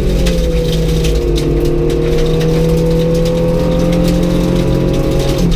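Rally car engine heard from inside the cabin, pulling at steady revs with its note changing near the end, while gravel from the dirt road ticks and pings against the underside.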